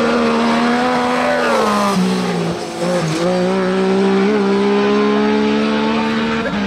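Racing engine of a small open-wheel buggy-style race car revving hard and accelerating away. It gives a high, steady engine note that sags briefly about two to three seconds in, then holds and climbs slightly as the car pulls away.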